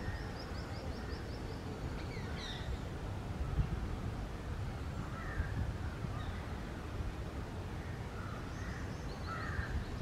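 Outdoor ambience of wild birds: a steady low rumble, with a few short, faint, harsh bird calls scattered through it and a rapid high trill at the start and again near the end.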